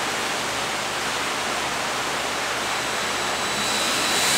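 Steady rushing noise of electric fans running. Near the end a cordless drill starts up with a rising high whine, drilling into the kayak's plastic hull.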